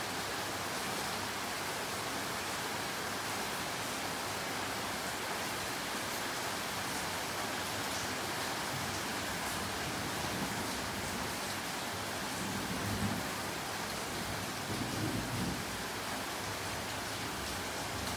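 Steady rain falling, an even hiss, with a few brief low rumbles about two-thirds of the way through and near the end.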